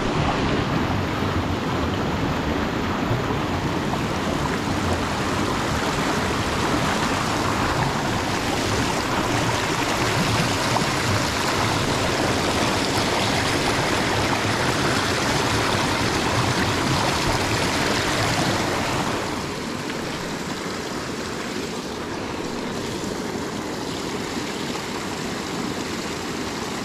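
Small mountain creek rushing and cascading over rocks close by, a steady rush of water. About two-thirds of the way through it drops to a somewhat quieter flow.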